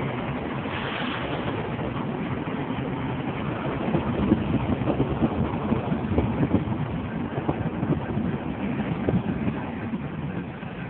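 Steady engine and road noise of a car being driven through city streets, heard from inside the car. It grows louder and rougher for a few seconds in the middle, then settles.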